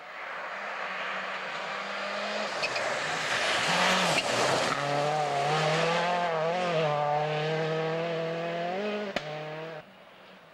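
A Seat Cordoba WRC, a turbocharged four-cylinder World Rally Car, comes in fast on a snowy stage. It passes close about four seconds in with a rush of tyre and snow-spray noise. Its engine note then wavers up and down under throttle as it slides away, with one sharp crack near the end before the sound cuts off suddenly.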